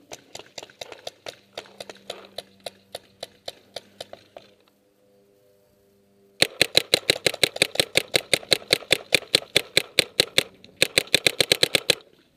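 Paintball marker firing: a quieter run of shots, about four a second, then after a short pause loud rapid fire at roughly seven to ten shots a second, broken once briefly near the end.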